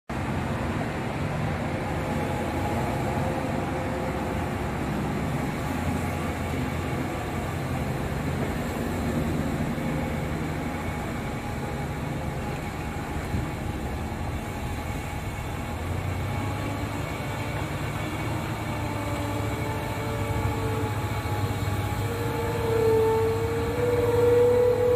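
Diesel engine of a heavily loaded Hino FM2P truck pulling slowly around a bend with a steady rumble. It grows louder over the last few seconds as the truck nears, and a wavering whine rises over the engine.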